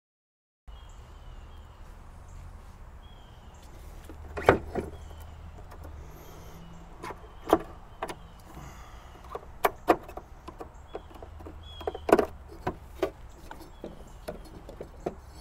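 Hand tools and metal mower parts being picked up, set down and worked, giving scattered sharp clinks and knocks, the loudest about four and a half and twelve seconds in.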